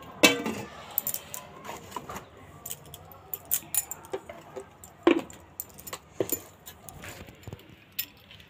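Steel cookware clinking and clattering as a steel pot lid and utensils are handled: a string of sharp metallic clicks, a few louder clanks with a short ring.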